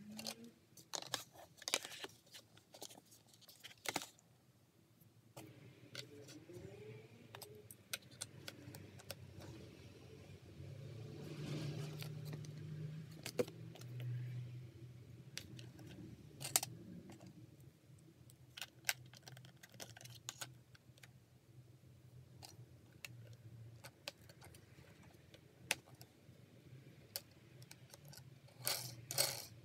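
Chunky plastic construction-toy pieces clicking and rattling as they are handled and snapped together: a frame, pegs and gears being fitted onto an axle. The clicks come irregularly, some in quick clusters, over a faint low hum.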